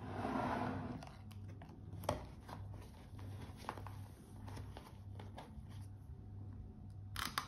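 Hands handling a watch on its padded cushion and a cardboard presentation box: a soft rustle in the first second, then scattered light clicks and taps, and a sharper knock near the end.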